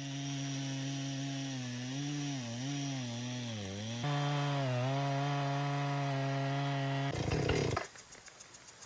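Gas engine of a portable bandsaw sawmill running under load, its pitch dipping and recovering as the blade cuts through the log. The engine gets louder and steadies about halfway through. Near the end there is a short burst of rough, grinding noise, then it cuts off suddenly.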